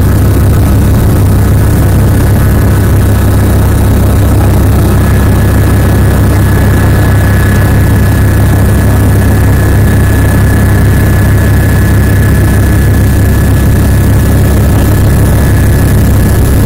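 Helicopter heard from inside the cabin, its engine and rotor running steadily on the ground. A loud low drone with a thin, steady high whine over it.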